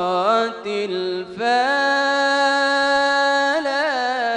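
A solo male voice singing Islamic inshad, a devotional ode to the Prophet, melismatically drawing out one word: a short phrase, then a long held note from about a second and a half in that ends in a quick wavering ornament.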